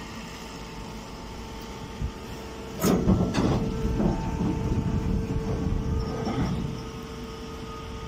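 Hydraulic alfalfa baler's power unit running with a steady hum. About three seconds in, a louder stretch of scraping, rustling and clatter starts and lasts several seconds as a bagged bale comes out of the baling chamber.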